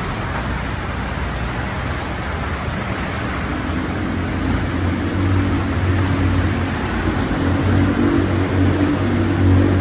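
Floodwater rushing and churning through a debris-clogged creek channel as a steady hiss. From about three and a half seconds in, a vehicle engine's low hum joins it and grows louder.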